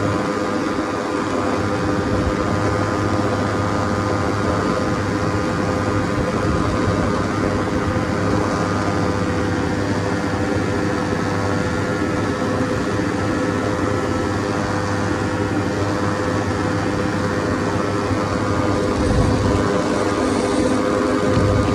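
Ultralight trike's engine running at a steady pitch, with wind rushing past the microphone; slightly louder near the end.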